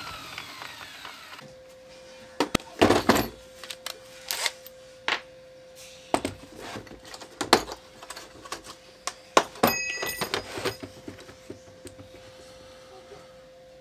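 A power sanding disc's whine falling as it spins down, then the clicks and clatter of tools being handled: a plastic drill-bit case opened and steel drill bits knocked and rattled in it, with a few short ringing clinks.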